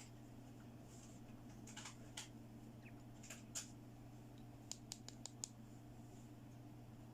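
Small plastic toy pieces handled, giving faint light clicks and taps, with a quick run of about five sharp clicks about two thirds of the way through, over a steady low hum.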